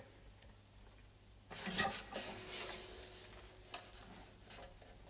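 Acoustic guitar being lifted off and handled: a burst of rustling of strap and clothing about a second and a half in, then a faint note ringing on and a few light knocks.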